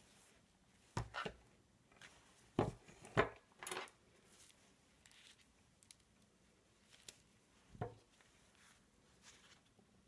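Handling noise from gloved hands moving electrical cables on a workbench: a few scattered knocks and rustles, most of them clustered in the first four seconds, with one more knock later.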